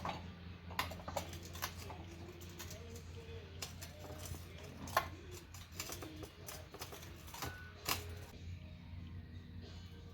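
Scattered metal clicks and knocks from a manual tire changer and its bar as an ATV tire's bead is worked over the rim, over a steady low hum.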